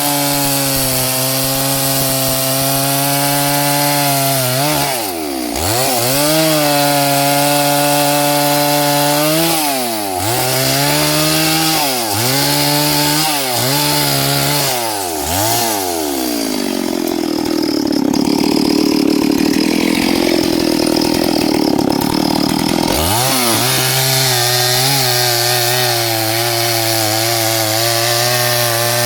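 Small chainsaw running at high revs and cutting a log. Its pitch dips and recovers several times as the chain bites and is eased, with a longer stretch of continuous cutting past the middle, then it runs steady again near the end.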